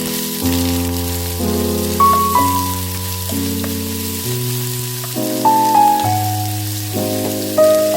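Background music of slow struck chords and a simple melody, each note fading after it sounds, over a faint steady hiss of food sizzling in a pan.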